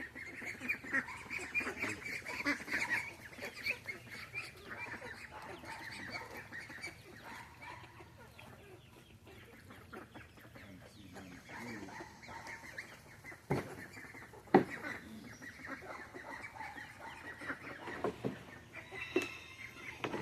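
A flock of farm poultry calling and clucking, busiest in the first few seconds, as the birds clamour for food. Two sharp knocks come past the middle.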